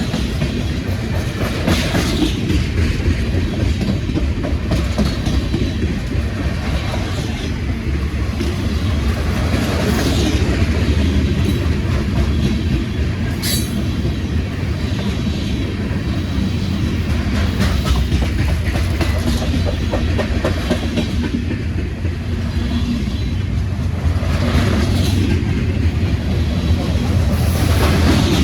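Cars of a Norfolk Southern mixed freight train rolling past: a steady rumble of steel wheels on rail, with a brief high squeal about halfway through.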